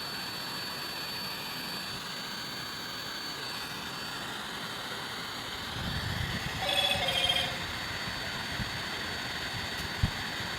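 Steady whir with a thin high whine from a powered-on DJI Mavic Pro on the bench, the sound of its internal cooling fan. About seven seconds in comes a short run of rapid electronic beeps.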